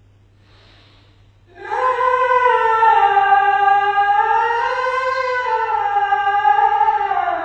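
A solo unaccompanied voice sings the Islamic call to prayer (azan): one long melismatic phrase whose pitch wavers up and down, starting about a second and a half in.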